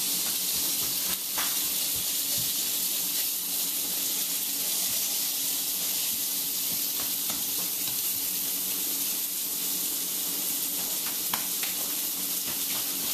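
Salmon fillet sizzling steadily in olive oil in a frying pan, with a few light clicks of a spatula against the pan.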